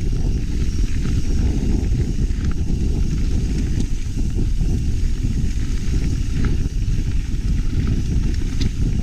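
Mountain bike being ridden along a dirt trail, heard through a bike- or helmet-mounted GoPro: a steady heavy rumble of wind and trail noise on the microphone, with scattered sharp clicks and rattles from the bike.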